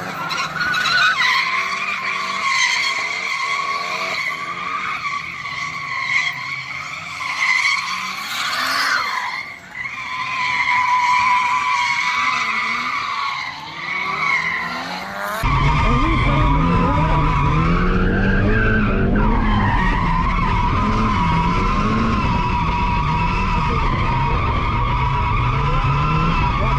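Nissan S15 200SX drifting: its tyres squeal in long, steady stretches under the car's engine. A little past halfway the sound switches to inside the cabin, where the turbocharged SR20DET four-cylinder is loud, its revs rising and falling over the tyre squeal.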